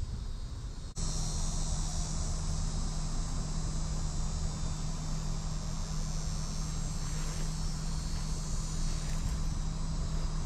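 Steady outdoor insect chorus, a dense high shrill buzz, over a low steady hum and some wind rumble; it starts abruptly about a second in.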